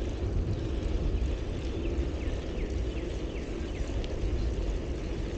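Wind buffeting the microphone and tyre rumble on a moving bicycle, a steady low rumble. A run of faint, short, high falling chirps comes through about two to three seconds in.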